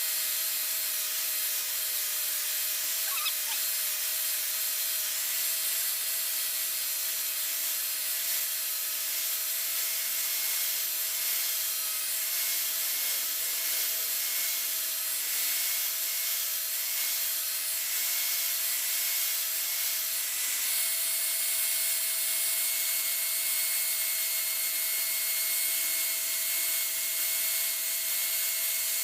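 Powered sander or grinder running steadily on a steel knife blade: a continuous abrasive hiss over a steady motor whine.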